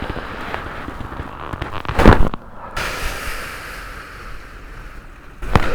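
Joints popping during a chiropractic spinal adjustment. A loud rapid cluster of cracks comes about two seconds in, and a second, shorter pop comes near the end.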